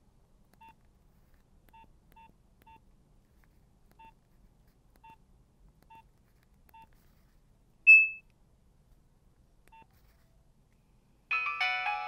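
Nokia 1200 keypad beeps: about nine short, faint beeps spread unevenly as the buttons are pressed, with one much louder, higher beep about eight seconds in. Near the end one of the phone's ringtones starts playing loudly, several notes sounding together.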